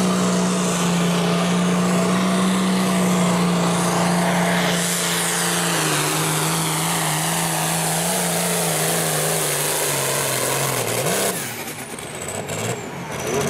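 Farmall light limited super stock pulling tractor's turbocharged diesel engine running at full throttle against the pulling sled. Its pitch slowly drops as the engine lugs down under the growing load. About eleven seconds in the throttle is cut, and the sound falls away to a quieter, lower engine note.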